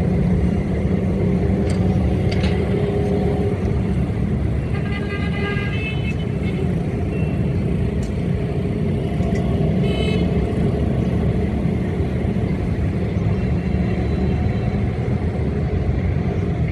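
Steady low rumble of a diesel train or locomotive engine at a station. A horn sounds briefly about five seconds in and again, shorter, about ten seconds in.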